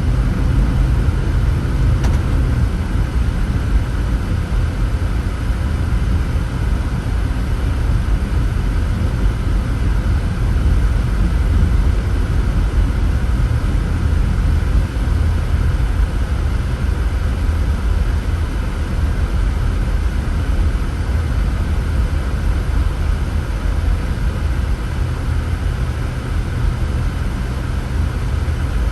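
A car driving at a steady pace: a constant low rumble of engine and tyre noise.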